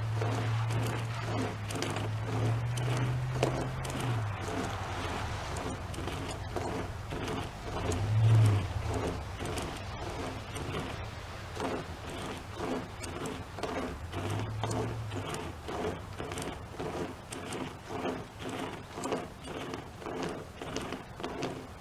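Rope chainsaw being pulled back and forth through a tree branch, rasping in a steady rhythm of about two strokes a second. A low hum comes and goes beneath it.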